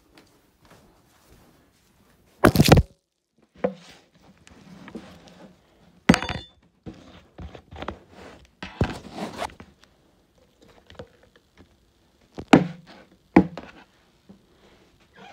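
Irregular thunks and knocks of things being handled and set down, about five sharp ones spread over the stretch with faint rustling between them. One, about six seconds in, has a short metallic clink.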